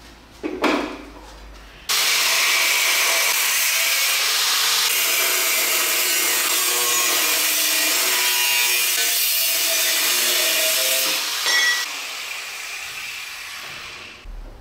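Angle grinder with a thin cut-off disc cutting through steel angle iron: a loud, steady grinding hiss that starts abruptly about two seconds in. Near the end there is a brief clatter, and then the sound dies away gradually.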